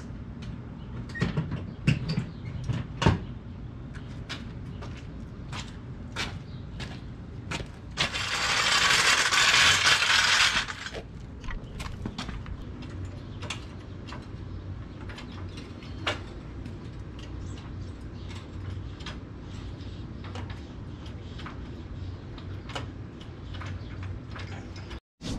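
Motorcycle lift being worked under a heavy touring motorcycle, with scattered metallic clicks and clanks. A loud hiss lasts about three seconds around a third of the way in.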